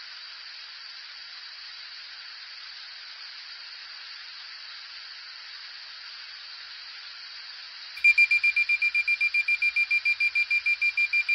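A steady hiss for about eight seconds, then a flammable gas alarm starts beeping: a rapid, high-pitched beep about six times a second, the alarm going off as it detects gas.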